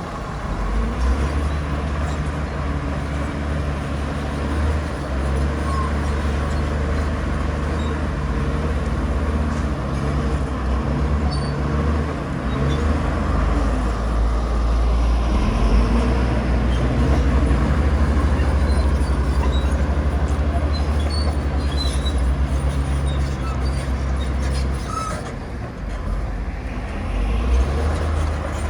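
Heavy diesel earthmoving machinery running steadily with a deep engine drone, growing a little louder in the middle and dipping briefly near the end.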